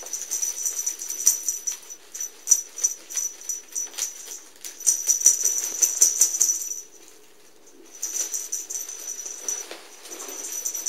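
Quick, busy rustling and rattling of cat toys being batted and tugged by two playing cats, dropping off for about a second near seven seconds in, then starting again.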